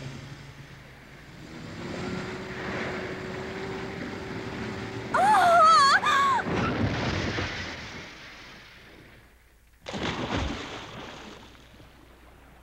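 Animated sound effects: a vehicle engine humming steadily, then a man's drawn-out scream about five seconds in, the loudest sound. After a lull, a sudden heavy splash into water comes about ten seconds in and fades away.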